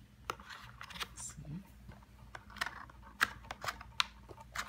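Hands handling liquid lipstick tubes in a cardboard gift box tray: a run of sharp clicks and light knocks, with a short rustle in the first second and a half.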